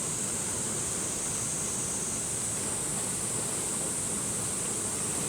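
Steady rush of a mountain stream flowing over rocks, with a constant high hiss on top.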